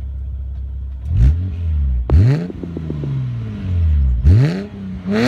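BMW 128i's inline-six engine idling and being blipped, revving up sharply and dropping back three times, about one, two and four seconds in.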